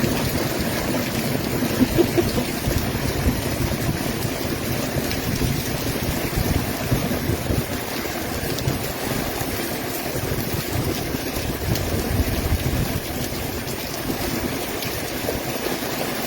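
Heavy thunderstorm downpour: a steady rush of rain with runoff water gushing, and wind gusting over the microphone.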